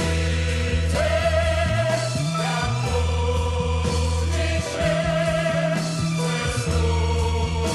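Rock song with held, choir-like group vocals sung over bass guitar and drums.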